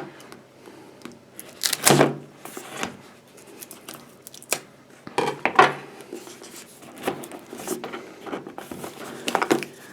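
Hands opening a cardboard tablet box: irregular scraping, rustling and tearing of the packaging, with a few louder scrapes and knocks.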